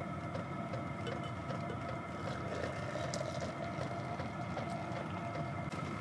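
Diesel heater running steadily inside the tent: an even mechanical hum with a low rumble underneath.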